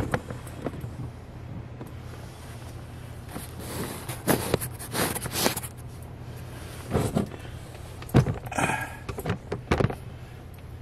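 Irregular knocks, bumps and rustles of someone clambering up among wooden attic rafters and insulation, over a steady low hum.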